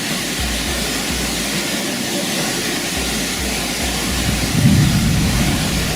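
Waterfall rushing steadily, a loud even noise, with low thumps on the microphone and a heavier low swell about four and a half seconds in.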